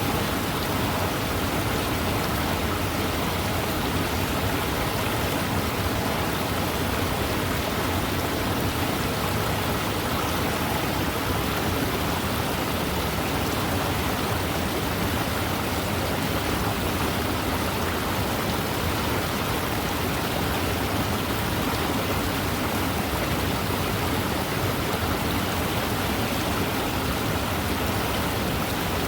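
Waterfall: a steady, even rush of falling and splashing water, unchanging throughout.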